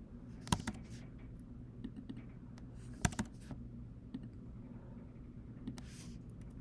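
A few scattered keystrokes and clicks on a computer keyboard as numbers are typed into a document, sharpest as pairs about half a second in and near three seconds.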